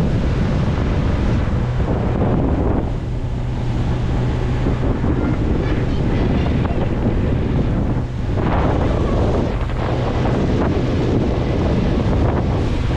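Wind buffeting the microphone aboard a moving motorboat, over a steady low engine hum and rushing water.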